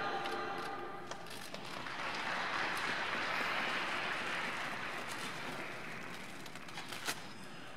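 Music fading out, then audience applause that swells and slowly thins out, with a sharp click near the end.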